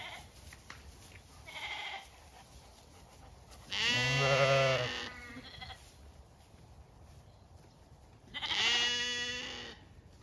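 Zwartbles sheep bleating: two loud, drawn-out bleats of over a second each, the first about four seconds in and the second near the end, with a fainter short bleat before them.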